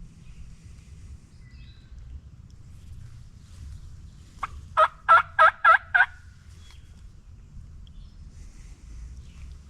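Wild turkey tom gobbling once, loud and close: a rapid rattling burst of about five or six quick notes about halfway through.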